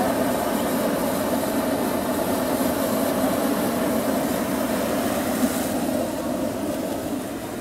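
Gas burner roaring steadily as it blows hot air into a large hot-air balloon to inflate it.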